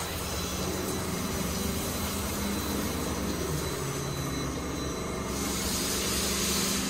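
Belanger Cube in-bay automatic car wash machine running: a steady mechanical hum with a hiss over it, the hiss easing off about five seconds in.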